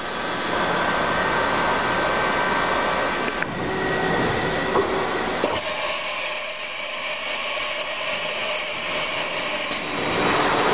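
CNC double-column machining center running, a steady mechanical noise that shifts character a couple of times. A high, steady whine comes in about halfway through and stops shortly before the end.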